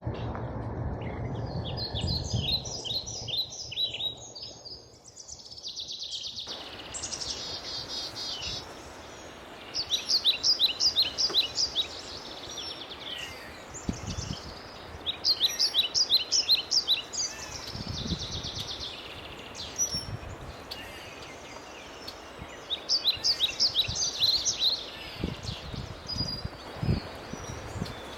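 Songbirds singing: short, fast trilled phrases of high notes, each a couple of seconds long, repeated every few seconds over steady outdoor background noise.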